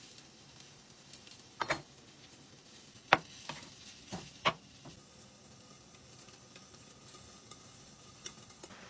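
Kitchen knife slicing avocado on a plastic cutting board: about five sharp knocks of the blade against the board within a few seconds, the loudest about three seconds in, over a faint hiss.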